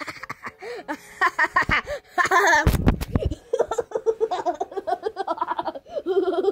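A child laughing in a long run of quick, high-pitched ha-ha pulses from about three and a half seconds in. Just before it comes a loud low rumbling thump, the sound of the camera being handled or covered.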